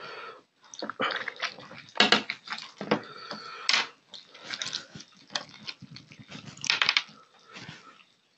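Close-up wet chewing, sucking and lip-smacking, with squelching as a curried rohu fish head is torn apart by hand. It comes in irregular bursts, loudest about two seconds in, just before four seconds, and near seven seconds.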